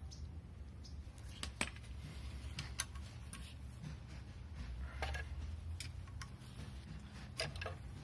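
About five sharp metallic clinks at irregular intervals, hand tools and sockets knocking against engine parts. A low steady hum lies underneath.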